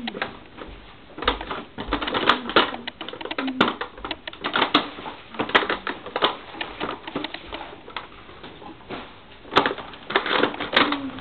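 A cat's paws scratching and tapping at the cardboard doors of an advent calendar box, making quick runs of clicks and scrapes in irregular clusters.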